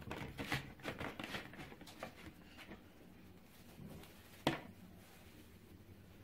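Hands working pieces of plasticine on a plastic modelling board: soft taps, presses and rubbing that come thick and fast for the first few seconds, then a single sharp tap about four and a half seconds in.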